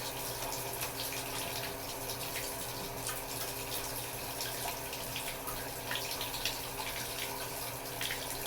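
Water running steadily in a bathtub, an even hiss with small splashes and drips.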